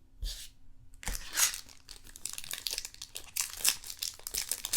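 A trading-card pack wrapper crinkling and tearing as it is handled and opened, in a dense crackle that starts about a second in and swells near the end.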